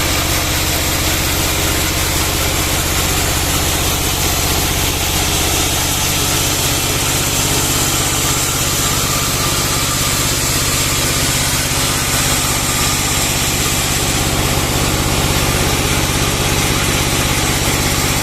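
Bandsaw sawmill's engine running steadily at a constant pitch, with no change in speed or load.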